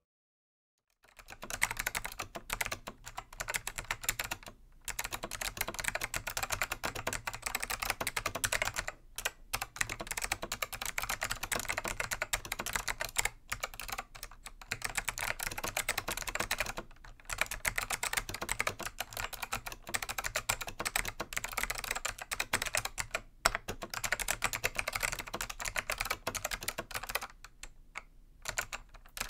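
Fast typing on a Dell AT101 keyboard with click-modded Alps SKCM Black switches: a dense stream of sharp keystroke clicks, starting about a second in and broken by short pauses every few seconds.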